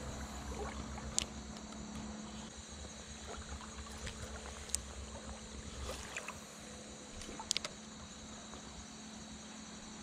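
Fishing tackle being handled: a few sharp clicks from the spinning reel and rod, one about a second in, one near the middle and a quick cluster later on. Under them, a low rumble of wind on the microphone that eases off after about six seconds.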